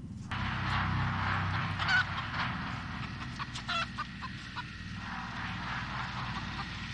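A caged chicken squawking several times, over a steady low drone.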